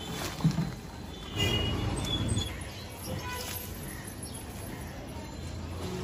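A woven plastic sack full of whole pineapples thumps down onto concrete pavement, then rustles and scrapes as it is pulled open. A few faint high chirps sound about a second and a half in.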